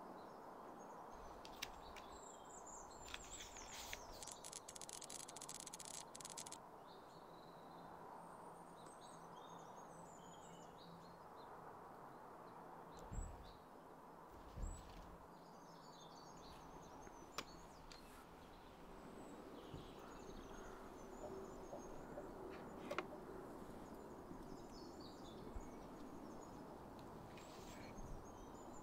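Quiet outdoor ambience with small birds chirping on and off. A few seconds in there is a burst of rustling, and a couple of soft knocks come around the middle.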